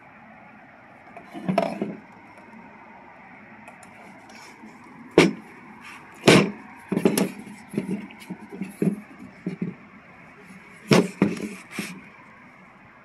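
Plastic Polk Audio speaker cabinets being handled and set down on a countertop: a series of short knocks and clunks, bunched together in the middle and again a couple of seconds before the end, over a steady hiss.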